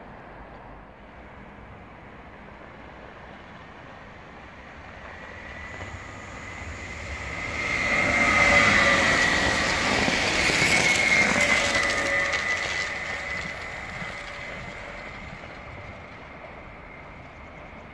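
Sm5 (Stadler FLIRT) electric commuter train approaching and passing close at speed: the rumble and hiss of wheels on rail build from about five seconds in, are loudest for a few seconds in the middle, then fade as it runs away. A steady high whine rides over the noise while it passes.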